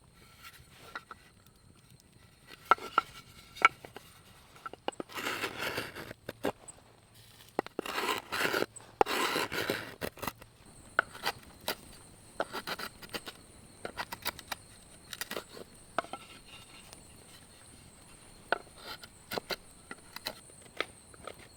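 Wood being carved by hand: scattered small knocks and clicks, with two longer rasping scrapes a few seconds apart near the middle.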